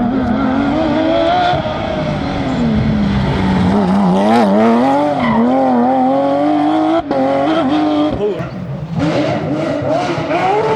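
Porsche rally car engine revving hard on a stage, its pitch climbing and dropping again and again through gear changes, with a sudden short break about seven seconds in.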